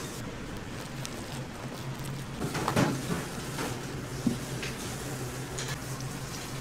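Food-prep kitchen sounds: a steady low hum with a few scattered knocks and clatters, the loudest a short clatter about three seconds in and a sharp knock about a second later.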